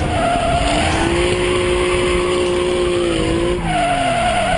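Ford Mustang police car drifting, its tyres squealing in two stretches, at the start and again from about three and a half seconds in. The engine is held at high revs in between, then its note falls away as the second squeal begins.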